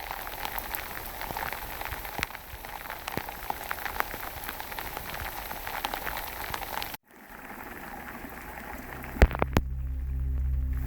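Rain falling, with many single drops pattering close by. About seven seconds in the sound cuts off sharply and comes back softer; near the end two sharp knocks are followed by a steady low hum.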